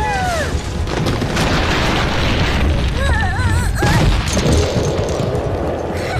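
Cartoon sound effects: a long rumbling boom and crash over background music, with high warbling squeals shortly after the start and again around three seconds in.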